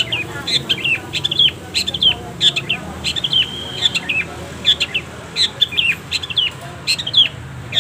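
Long-tailed shrike (cendet) calling: a rapid series of short, sharp notes that slur downward, about two or three a second, with one brief held note about three seconds in.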